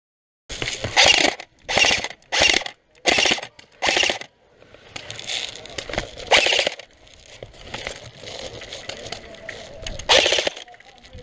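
Airsoft electric rifle firing short full-auto bursts: five quick bursts in the first four seconds, a couple more a little later, and one more near the end.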